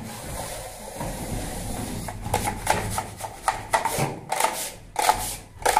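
Plastering trowel scraping wet gypsum plaster across a ceiling in short, quick strokes, about two to three a second from around two seconds in, as the last small holes are filled and smoothed over.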